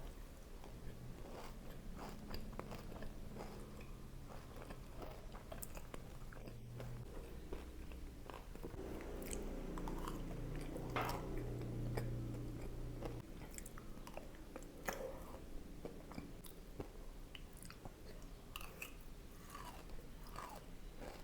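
Close-up biting and chewing of a crunchy kunafa brownie, with repeated crisp crunches of the shredded pastry as it is bitten and chewed. A low steady hum runs underneath for roughly the first two thirds.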